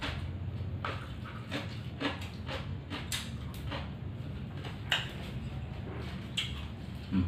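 Mouth sounds of a man eating with his hands: irregular wet chewing smacks and clicks, the sharpest near the end, over a steady low hum.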